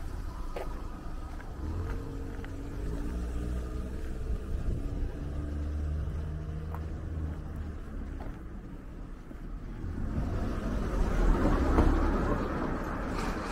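A car engine running at low speed with a steady low hum. Then a car passes close by, its engine and tyre noise swelling to a peak about twelve seconds in and easing off.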